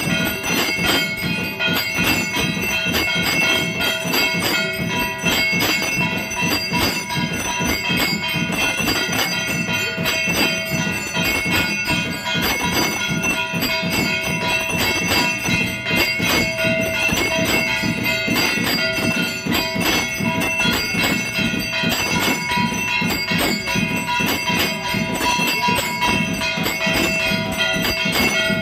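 Temple bells ringing continuously during aarti, a rapid, unbroken clanging with several ringing tones held over it.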